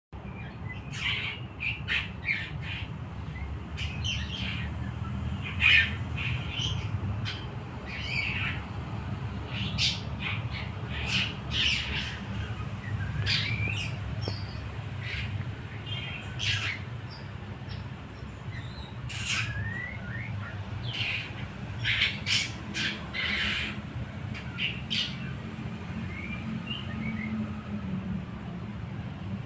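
Juvenile long-tailed shrike practising its song: scattered short calls and chirps at irregular intervals, over a low steady hum.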